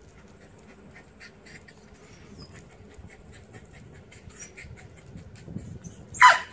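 Faint, quick animal sounds, short soft ticks a few times a second, then one sharp loud sound about six seconds in.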